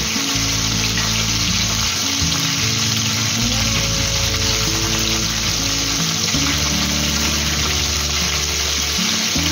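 Coated chicken pieces deep-frying in hot oil, a steady dense sizzle, over background music of sustained low notes.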